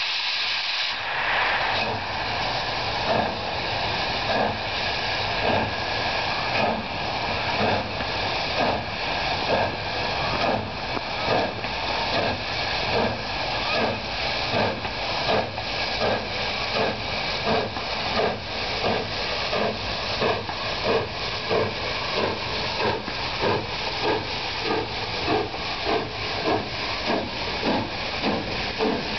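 Southern Pacific 4449, a GS-4 4-8-4 steam locomotive, starting its train: a loud steady hiss of steam with exhaust chuffs that begin about a second in and come steadily faster.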